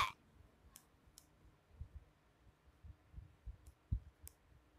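Quiet room with a few faint, scattered clicks and soft low thumps.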